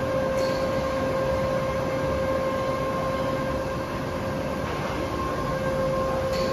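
Factory machining-line machinery running: a steady mechanical drone with a constant mid-pitched whine and a fainter higher whine above it.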